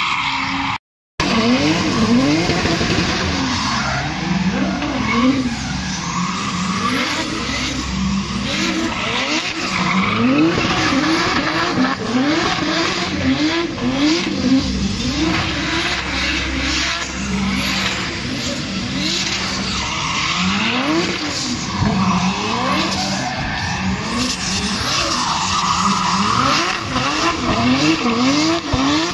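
Drift cars sliding sideways: engines revving up and down again and again as the throttle is worked through the slides, over steady tyre squeal and scrub. The sound cuts out for a moment about a second in.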